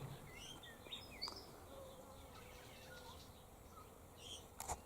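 Faint, scattered bird chirps and short calls with a faint, thin insect hum and a couple of soft clicks.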